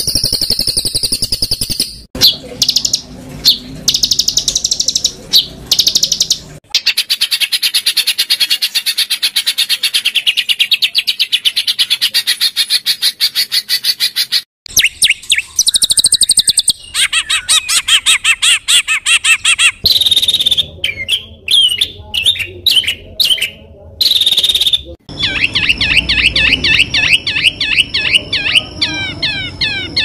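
Songbird calls spliced one after another as a 'masteran' tutor recording of harsh, rough calls: fast trills, rapid runs of repeated chattering notes and rising-and-falling whistles. The recording cuts abruptly to a different bird several times.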